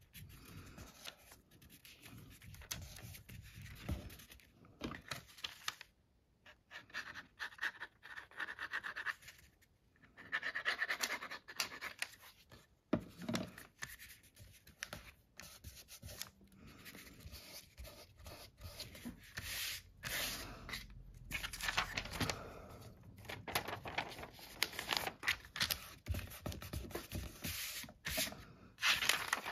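Paper being handled by hand in irregular strokes, with rubbing and scratching sounds.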